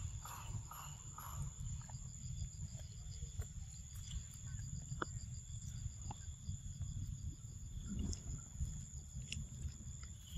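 Forest ambience: insects chirring steadily at a high pitch over a constant low rumble, with a few soft clicks as macaques eat mango.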